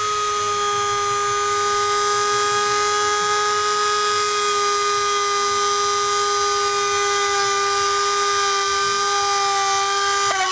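NRT-PRO 903HD mini grinder (rotary tool) running at its top speed with a steady high whine while its bit bores a hole into a disc. The pitch sags slowly under the load and dips sharply for a moment near the end.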